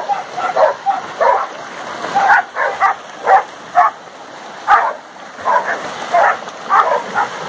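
Dogs barking and yipping in quick, irregular bursts, about two a second, while they splash through shallow creek water.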